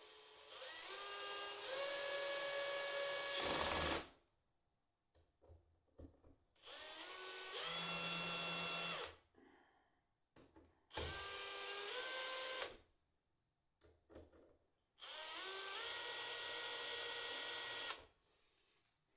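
Cordless drill-driver driving small M3 machine screws to fasten a battery-management board: four separate runs of two to four seconds each, the motor whine rising in pitch as it spins up and then holding steady until it stops.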